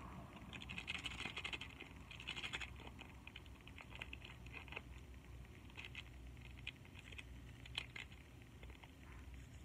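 Instant-noodle seasoning packet crinkling and crackling between the fingers as it is handled and opened, in several short irregular spells of crackle.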